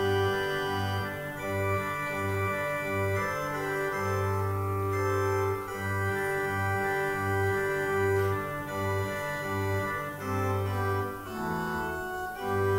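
Organ music: slow, sustained chords over a bass line that steps to a new note every second or so.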